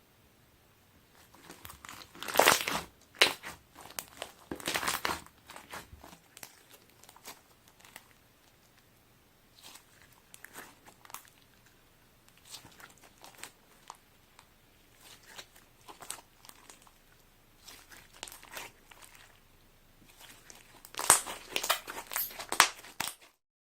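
Sponge slime, slime mixed with pieces of sponge, being squeezed and worked by hand, giving crackly, squishy popping sounds. Loud clusters come a couple of seconds in and again near the end, with softer handling between, and the sound cuts off abruptly.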